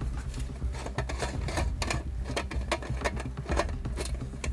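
Irregular clicks and rustles of equipment being handled right at the microphone, several a second, over a steady low rumble.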